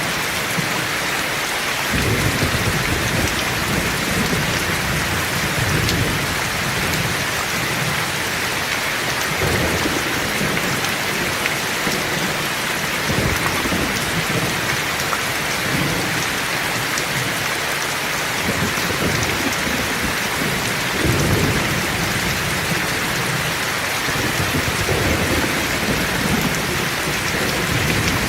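Heavy, steady rain with repeated low rumbles of thunder, the loudest rolls starting about 2 seconds in and again about 21 seconds in.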